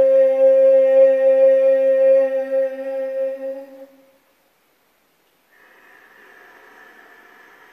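A woman chanting the vowel "A" on one long, steady pitch as a throat-chakra pranayama practice. It fades out about four seconds in. After a short pause comes a faint breath.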